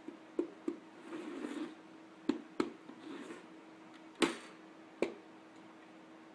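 A food bowl of dry kibble being handled and set down on a wooden floor: a few sharp clicks and knocks, the loudest about four seconds in, with brief soft rattling of the kibble between them. A faint steady hum runs underneath.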